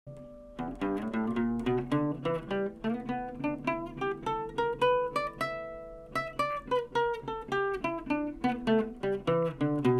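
Classical acoustic guitar played fingerstyle: a picked melody of single notes over ringing bass notes, thinning to one sustained note about five and a half seconds in before the picking resumes.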